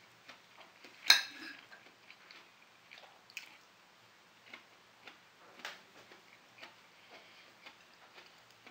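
Knife and fork tapping and scraping on a plate while food is cut and eaten: light irregular clicks, with one sharp ringing clink about a second in.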